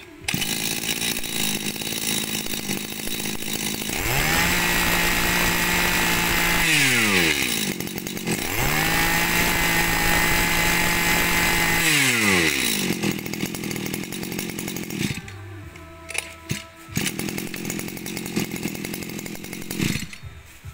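Shindaiwa 230 two-stroke 23cc brush cutter engine pull-started, catching at once and idling. It is revved twice to a steady high pitch for a couple of seconds each time, dropping back to idle after each rev, and is then switched off about three-quarters of the way through.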